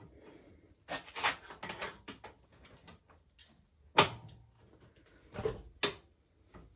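Metal clatter and knocks of a chrome tubular rear rack being handled and fitted onto a minibike's rear frame, with one sharp clank about four seconds in that rings briefly, and two more knocks near the end.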